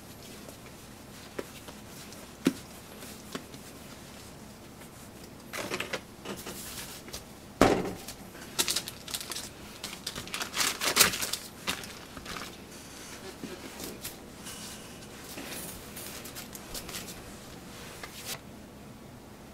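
Hands shaping soft rice-bran bread dough on flour-dusted baking parchment: the paper crinkles and rustles, with a dull thump of the dough against the counter about eight seconds in and a few sharper knocks a few seconds later. The handling stops shortly before the end.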